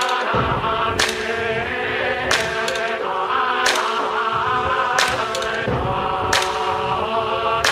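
Background music: choir-like chanting voices over a sustained drone, with a sharp percussion hit about every second and a third.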